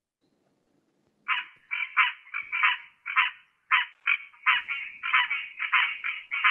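Green tree frog (Hyla cinerea) calls: short, nasal, duck-like notes repeated about three times a second, starting about a second in.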